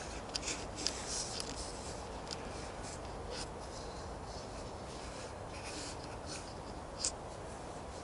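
Scratchy rustling and crackles close to the microphone as the handheld camera is moved and clothing rubs against it, thickest in the first couple of seconds, with one sharper click about seven seconds in, over a low steady hiss.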